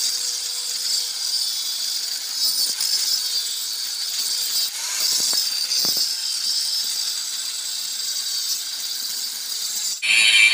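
Angle grinder with an abrasive disc grinding the cast-iron rear axle housing of a tractor, preparing the repair for stick welding: a steady, high grinding hiss over the motor's whine. Near the end it jumps to a louder, lower grinding as the disc bites harder and throws sparks.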